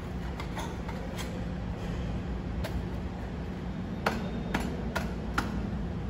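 A series of sharp metallic clicks and taps over a steady low hum, with four clicks coming close together near the end.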